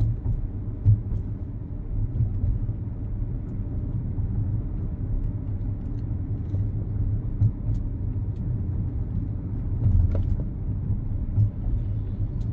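Steady low road and drivetrain rumble inside a moving Audi Q7's cabin, with a few faint light clicks. The sunroof rattle is gone after the repair, and the cabin is very quiet.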